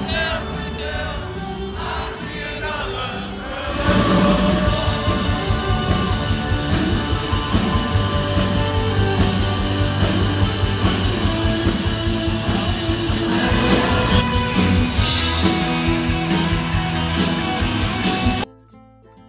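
Live rock band playing with a singer, recorded from among the audience; it gets louder about four seconds in and drops out suddenly for a moment near the end.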